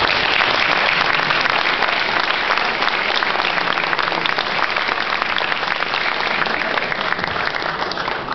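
Audience applauding, many hands clapping densely, the clapping thinning out near the end.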